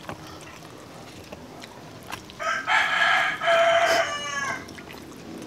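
A rooster crowing once, a single call of about two seconds that starts a little over two seconds in.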